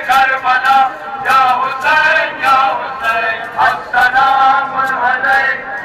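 Male singing of a noha, a Shia lament for Ashura, in a melodic chanting line, over a sharp regular beat about every half second.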